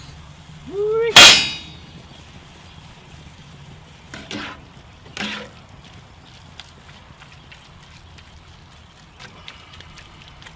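A short rising squeak, then one loud metallic clang about a second in, followed by two softer scrapes as ground beef is stirred with metal tongs in a cast iron skillet.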